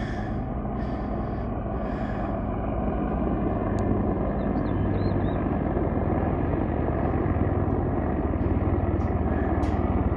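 A steady engine rumble that slowly grows louder, like a vehicle or aircraft approaching.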